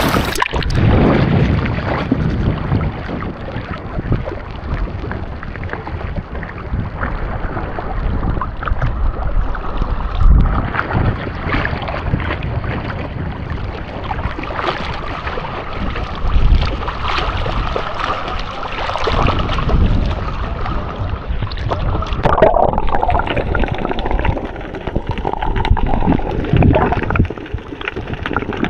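Seawater gurgling and sloshing around a camera held underwater, heard muffled, with uneven surges throughout.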